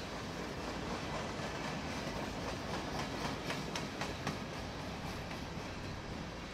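Freight train cars rolling past on steel wheels, a steady rumble with a run of sharp clicks midway as the wheels cross rail joints.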